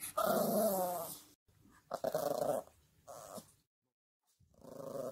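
Yorkshire terrier making growly, drawn-out 'talking' vocalizations, four in all, imitating the word "Mom".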